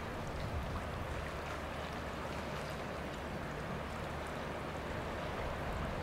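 Steady waterside ambience: gentle water movement with a low rumble of wind, even throughout, and no calls from the black swan.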